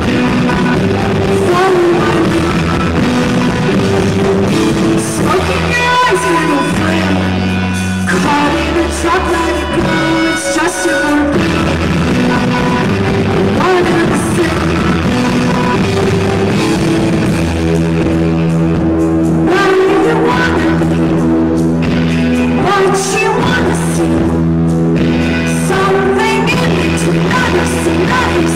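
Rock song playing: a sung lead vocal over a full band with bass and guitar, at a steady, loud level.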